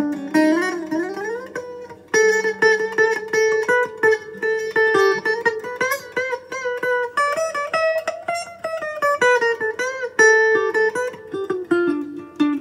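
Fender Stratocaster electric guitar played through a Fender amp: a single-note lead line that opens with a slide up, then runs of quickly picked notes with a few string bends.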